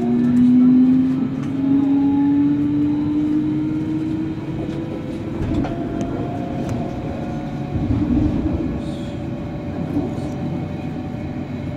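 Berlin S-Bahn electric train heard from inside the carriage while under way: steady wheel-on-rail rumble with scattered clicks, and a motor whine that rises in pitch over the first few seconds as the train gathers speed.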